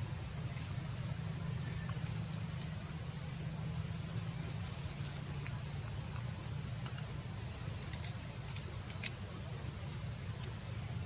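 Outdoor background: a steady low rumble under a thin, continuous high whine, with two sharp clicks about half a second apart roughly two-thirds of the way through.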